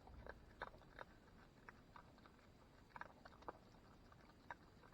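Opossum chewing cat food: faint, irregular crunching clicks, a few each second.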